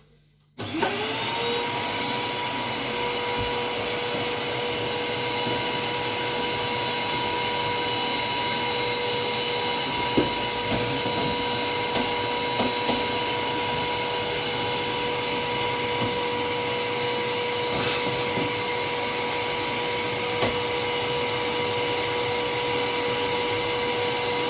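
Vacuum cleaner motor switched on about half a second in, spinning up to a steady whine and running on with a constant rush of air, used to blow out a fridge's blocked drain hole.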